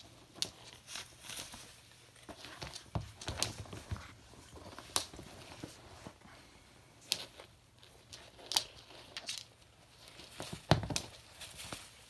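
Hyacinth macaw biting and tugging at plaid fabric slippers: irregular sharp clicks and tearing, crinkling sounds from its beak on the fabric, with a few knocks of the slipper on the wooden floor, the loudest a thump near the end.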